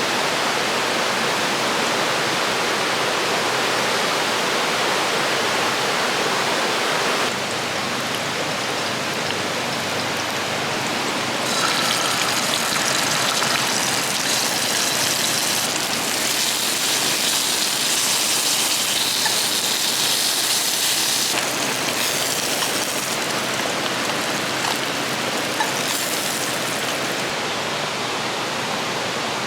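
River water rushing steadily over rocks, a constant hiss and roar that changes its tone abruptly a few times, brighter and more hissing for a stretch in the middle.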